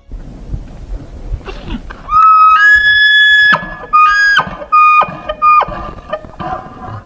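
Bull elk bugling: a high, whistled call in several held notes starting about two seconds in, rising in pitch, then a few shorter, lower notes near the end.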